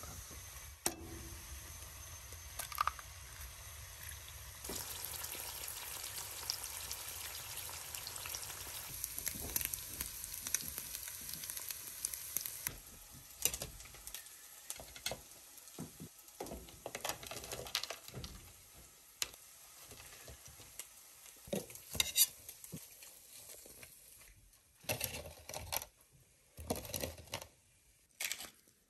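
Eggs frying in a cast iron skillet, a steady sizzle that drops away about halfway through. After that come scattered short clicks and scrapes of a metal spatula and plates as the food is served.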